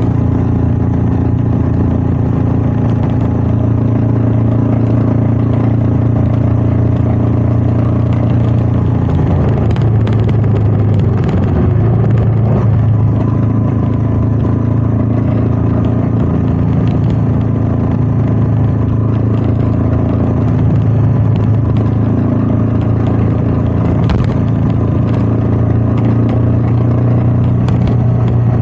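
Royal Enfield Meteor 350's single-cylinder engine running steadily under way, with wind noise. About ten seconds in, the engine note wavers and dips for a couple of seconds, then steadies again.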